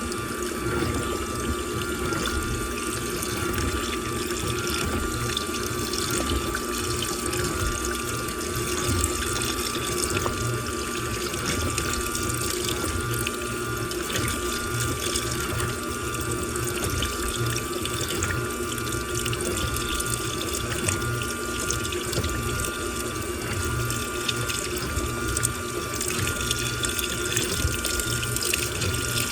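Washing machine filling with water: a steady rush of water running into the drum over a steady machine hum.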